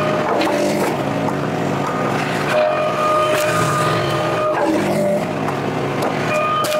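Wolfe Ridge 35 HO gas log splitter running steadily, with a steady whine that comes in about two and a half seconds in and again near the end, and occasional knocks of ash wood being split and handled.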